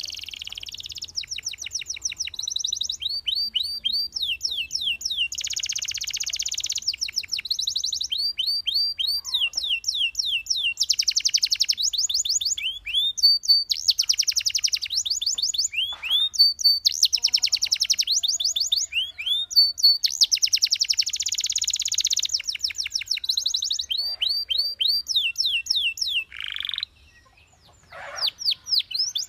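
Belgian canary singing: a continuous song of fast trills and rolls, runs of rapid repeated notes and downward-sliding whistles, with a short break about 27 seconds in.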